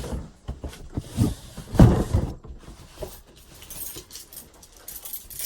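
A few dull knocks and handling noises, the loudest about two seconds in, then keys jingling faintly near the end.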